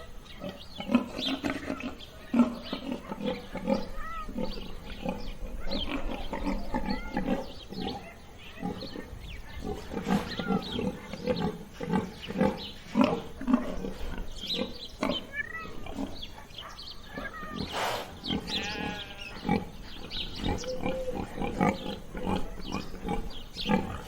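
Domestic pigs grunting and oinking in short, irregular calls that overlap one another, with a few higher-pitched calls among them.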